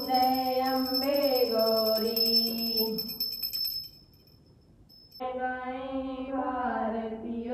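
Women singing an aarti hymn while a small handheld puja bell rings rapidly. The bell and singing break off about four seconds in, and the singing resumes a second later without the bell.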